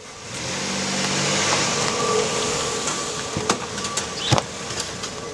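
A car, here a black SUV, driving up and coming to a stop, with engine and tyre noise and a low hum early on. Near the end there are a few sharp clicks.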